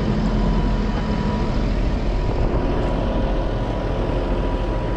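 Tractor diesel engine running steadily, with a thin steady whine alongside it.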